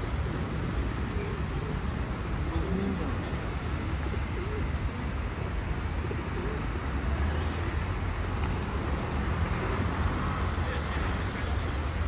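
Feral pigeons cooing in a flock, with a few soft low coos over a steady low rumble of background noise.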